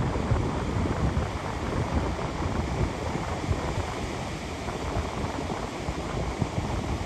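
Ocean surf washing onto a beach, with wind buffeting the microphone in a steady low rumble.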